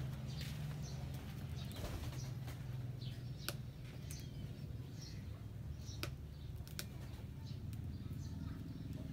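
Wood fire under a cooking pot, giving a few sharp crackles and pops, with small birds chirping in the background over a steady low hum.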